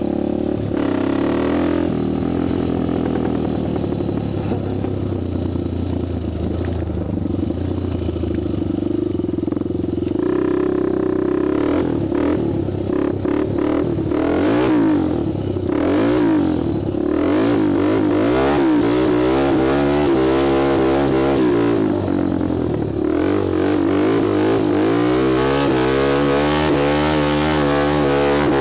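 Honda TRX250X quad's single-cylinder four-stroke engine being ridden, its pitch rising and falling over and over as the throttle is worked, with quicker revs in the second half.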